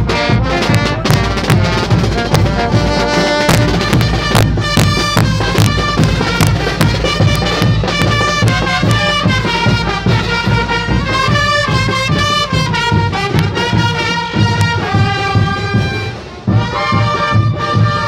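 Bolivian brass band playing loudly close by: trumpets, sousaphones and other horns carrying the melody over drum beats.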